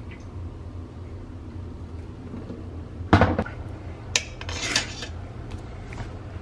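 Metal fork and serving spoon clanking and scraping against the stainless steel inner pot of an Instant Pot while lifting pressure-cooked roast. One sharp clank comes about three seconds in, then a few lighter clinks.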